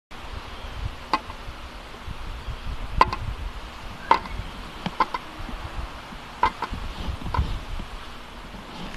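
Glass bottle knocking against a hard plastic face mask: a series of sharp clinks with a short ring, unevenly spaced and some in quick pairs. Wind rumbles on the microphone underneath.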